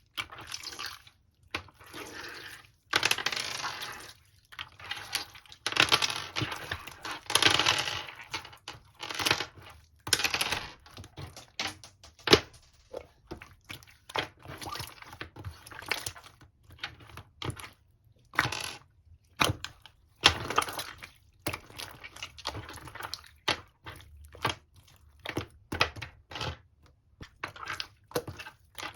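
Slime being squished and pressed by hand, with wet squelching and sharp popping clicks coming in irregular bursts.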